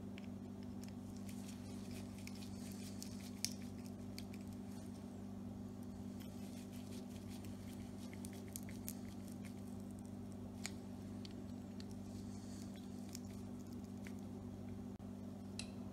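Faint scattered clicks and light scraping of a screwdriver working the small screws of a two-stroke dirt bike engine's reed valve, with one sharper click about three and a half seconds in. A low, steady hum runs underneath.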